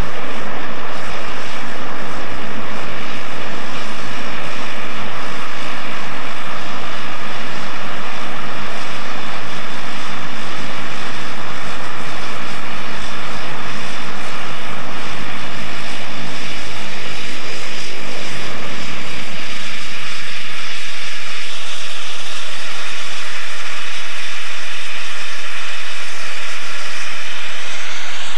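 Twin-engine turboprop airliner's engines and propellers running loud and steady, a deep drone with a higher whine over it. About two-thirds of the way through, the deep drone drops away, leaving a higher whine and hiss.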